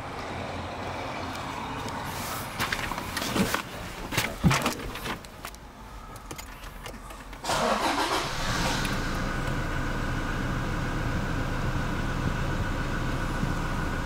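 A few knocks from the cabin, then about halfway through the Toyota Hilux's diesel engine cranks and starts, settling into a steady idle.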